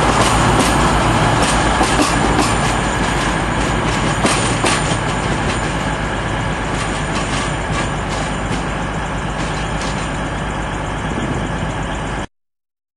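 A Class 222 Meridian diesel multiple unit running out past the platform, with a steady engine and rail noise and scattered sharp clicks, slowly fading as it draws away. The sound cuts off suddenly near the end.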